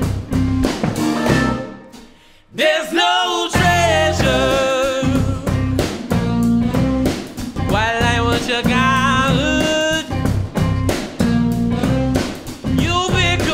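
Live band of electric guitar, acoustic guitar and drum kit playing a song with a man singing. About two seconds in the band stops for a moment, then the singing comes back on long wavering notes and the band kicks back in.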